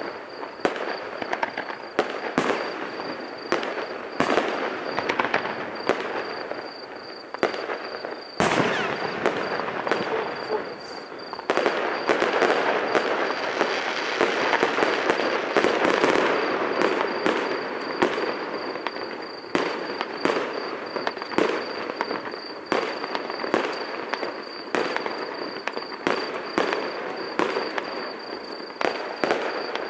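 Fireworks going off in a near-continuous string of sharp bangs and crackling. There is a loud bang about eight seconds in, and the crackling is densest in the middle stretch.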